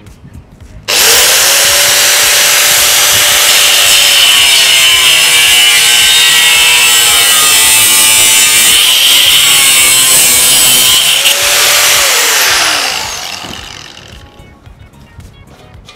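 Bosch GWS 7-115 angle grinder with a metal cut-off disc cutting through a square steel tube: a loud, steady, high screech of the disc in the metal, starting abruptly about a second in. Near the end the cut is through and the grinder's whine falls away as the disc winds down.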